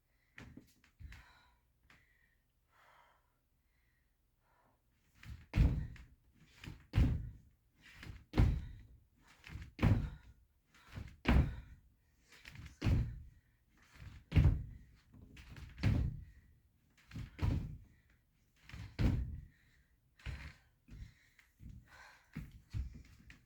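Feet landing on a floor during repeated plyometric jumps: a heavy thud about every second and a half, each followed by lighter footfalls, starting about five seconds in after a few faint taps.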